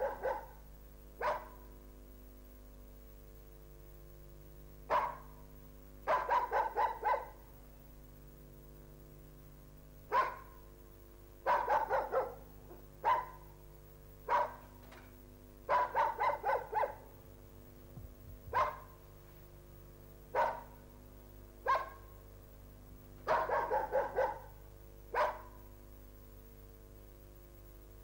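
A dog barking repeatedly. Single barks alternate with quick runs of four or five barks, every few seconds.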